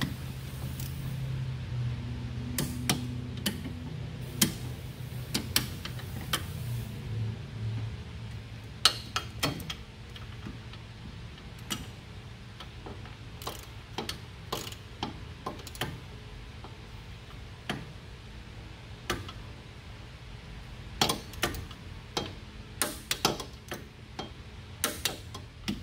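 A ratcheting wrench clicking in short, irregular runs as the caliper bracket bolts are run down and torqued.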